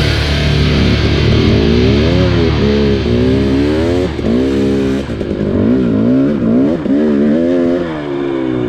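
Heavy rock music fades out over the first few seconds, while a two-stroke dirt bike engine revs up and down again and again, its pitch rising and falling with the throttle.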